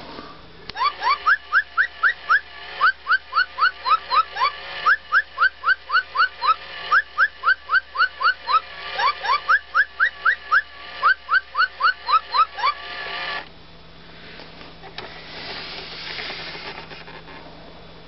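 Parrobot robotic parrot toy playing a built-in sound effect through its small speaker: a long run of quick rising whistled chirps, about four a second in short runs, which stops about thirteen seconds in and gives way to fainter sound.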